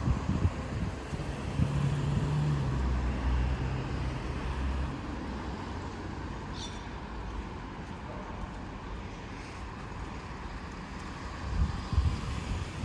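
Street traffic: a motor vehicle's engine hums steadily for the first few seconds, then gives way to a steady wash of road noise. Near the end, low rumbling wind buffets the microphone.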